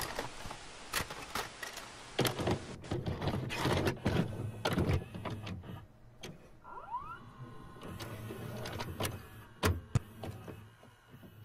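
VHS video recorder's tape mechanism loading and starting to play: a burst of static hiss, then a run of clicks and clunks over a low motor whirr, with a short rising whine about seven seconds in and two hard knocks near the end.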